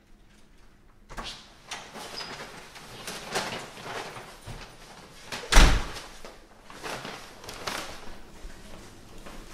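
A front door opens about a second in, and paper shopping bags rustle along with footsteps as someone comes in with full arms. About halfway through the door slams shut with a heavy thud, the loudest sound.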